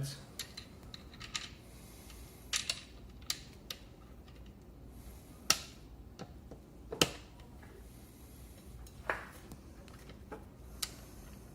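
Scattered sharp clicks and taps of metal parts being handled as the axle washers and wheel are seated in the scooter's fork, irregularly spaced, the two loudest about five and a half and seven seconds in.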